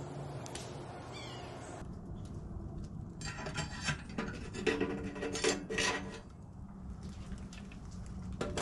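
Metal scraping and clinking as a wire hook lifts the round cooking-hole lid of a sheet-metal wood stove and drags it aside, with a brief metallic ring. Near the end, clinks as a metal coffee pot is set down over the opened hole.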